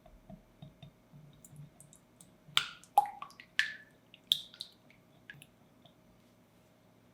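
Light clicks and taps of kitchen prep at a mixing bowl, with a cluster of sharper strikes about two and a half to four and a half seconds in; the loudest, near three seconds, rings briefly like a tap on a bowl.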